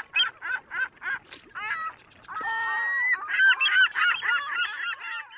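A flock of geese honking: a run of short calls about four a second, then a longer held call, then many calls overlapping.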